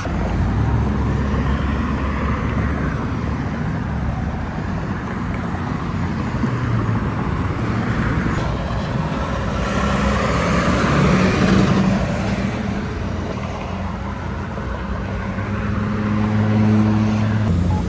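Road traffic at a busy intersection: vehicle engines running steadily, with a vehicle passing loudest about ten to twelve seconds in.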